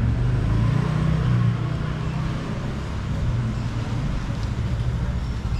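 Steady low rumble of street traffic, a little louder in the first second and a half.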